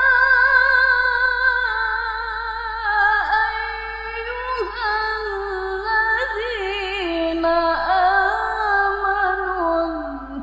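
A female Qur'an reciter (qari'ah) chanting in the melodic tilawah style, holding one long, high note with a wavering vibrato and ornamental turns that steps slowly down in pitch.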